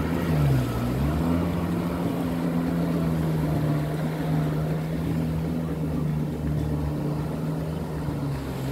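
Jet ski engine running at speed, a steady drone whose pitch dips and climbs back about a second in, then holds and sinks slightly near the end.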